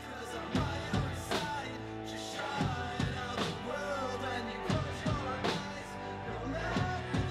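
Live rock band playing: drum kit keeping a steady beat under electric guitars and bass guitar, with a man's lead vocal coming in about two seconds in.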